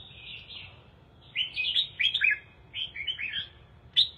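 Red-whiskered bulbul singing: a soft warble at first, then from about a second and a half in, quick runs of short, bright whistled notes that fall in pitch, with another burst near the end.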